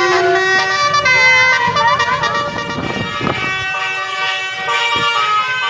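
Tour bus multi-tone 'telolet' horn (klakson basuri) sounding several held notes together, a loud chord-like blare that changes note now and then.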